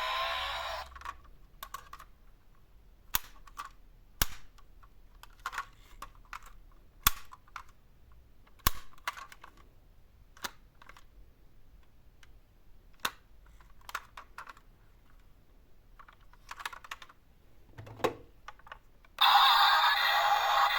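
A toy vehicle's electronic siren cuts off about a second in. Then come irregular sharp clicks and taps of small toy cars being handled, with a dull knock near 18 seconds. Near the end a loud electronic toy siren sound starts abruptly.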